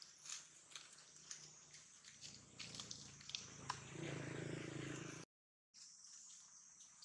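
Faint steady chirring of insects, with scattered small clicks and crackles of dry leaves. Past the middle, a low steady hum rises for about a second, then all sound cuts out briefly and the insects return.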